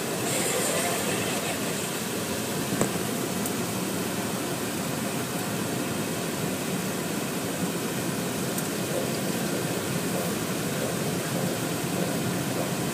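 Automatic car wash air dryers running, heard from inside the car: a steady rushing noise as the water is blown off the windshield, with one short click about three seconds in.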